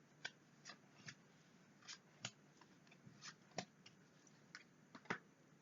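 Fortune-telling cards being handled and laid on a table: about nine sharp clicks and snaps at uneven intervals.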